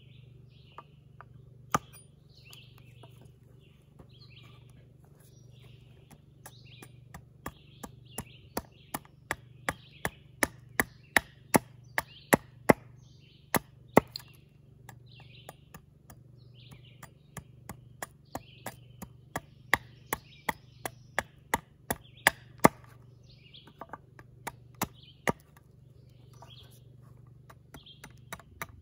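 Hatchet chopping into a catalpa wood billet, roughing out a spoon blank. A few scattered strokes come first, then two long runs of sharp blows at about two a second, each growing louder, with a short pause between them.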